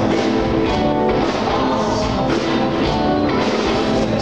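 Music with instruments and drums playing.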